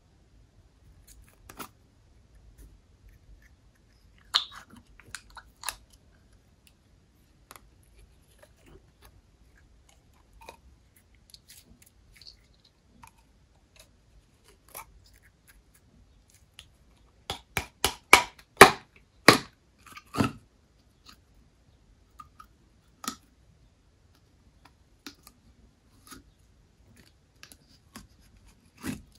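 Slime being handled and mixed by hand: scattered short, sticky clicks and pops, with a quick run of louder pops about two-thirds of the way through.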